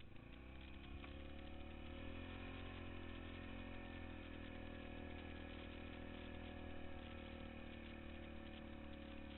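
ATV engine running as the quad drives through snow. The revs rise over the first second or two, then hold steady.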